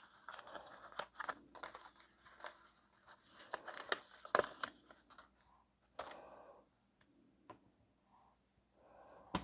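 Paper and die-cut pieces being handled: soft, intermittent rustling and crinkling with light clicks and taps.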